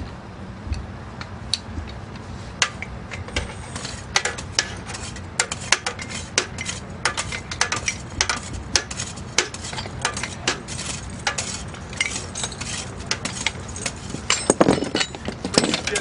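Metal rescue gear clinking and clanking as it is handled: sharp, irregular clicks, several a second, over a steady low hum.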